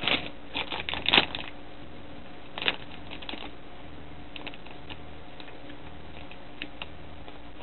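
Plastic sweet wrapper crinkling as it is handled: clusters of short crackles in the first second and a half and again around three seconds in, then only a few scattered faint ticks.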